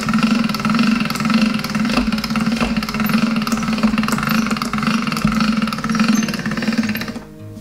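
Chrome pasta roller machine running steadily, pressing a sheet of wonton-wrapper dough through its rollers; it stops near the end.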